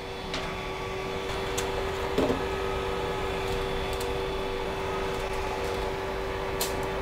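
Creality CR-10S Pro 3D printer's cooling fans running with a steady hum, rising a little in the first couple of seconds, while the printer sits powered on. A few faint ticks of filament being handled at the extruder.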